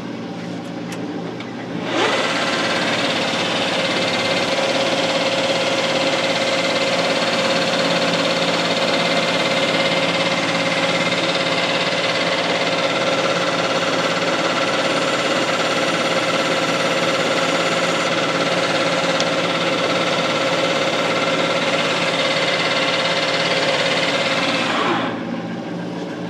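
Manual metal lathe running, a steady machine noise carrying several held whining tones. It gets markedly louder about two seconds in as the turning shaft is worked, and drops back shortly before the end.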